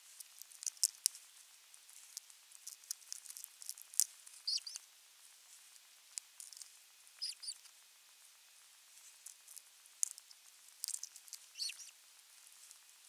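Irregular sharp taps, snaps and crackles of an osprey tearing at a live, twitching pike in its stick nest. Three short high squeaks, typical of osprey calls, come about a third of the way in, just past halfway, and near the end.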